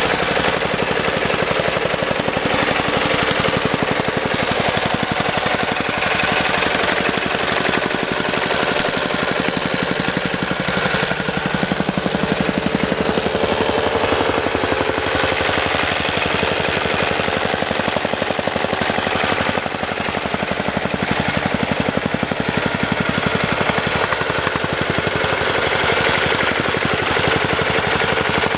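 Vibrating soil compactor pounding soil around a concrete foundation: a rapid, unbroken rattle of hits, with an engine running underneath that changes pitch briefly around the middle.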